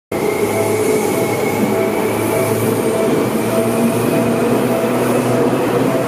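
Seibu Ikebukuro Line electric commuter train passing at close range: a steady rumble of wheels on rails, with a thin high whine over the first few seconds.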